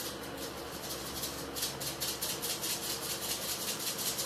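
Seasoning granules rattling in a plastic shaker bottle shaken quickly over a wok, about nine shakes a second, getting stronger about a second and a half in, over a steady hiss from the pan of vegetables cooking.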